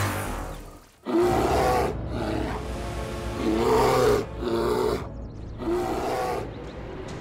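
Cartoon bear growling and roaring in a series of about five calls, over background music. In the first second a whooshing teleport effect fades out.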